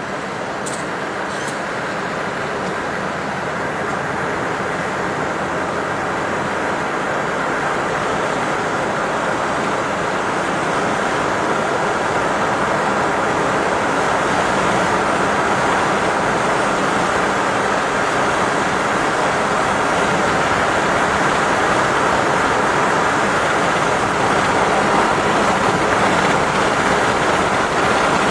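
Road and wind noise inside a car driving on a highway, a steady rushing that grows gradually louder as the car picks up speed.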